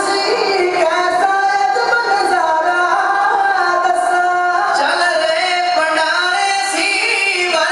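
Men's voices singing Punjabi kavishri together through microphones, long held lines gliding in pitch.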